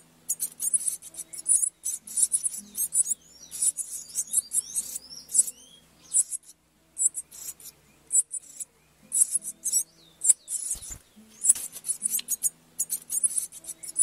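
Double-collared seedeater nestlings begging: rapid clusters of very high, thin chirps while the parents feed them, pausing briefly now and then.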